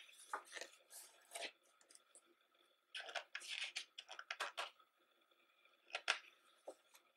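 Pages of a thick hardcover photo book being turned by hand: paper rustling and swishing in short bursts, a cluster near the start, another about three seconds in, and a single sharp flick about six seconds in.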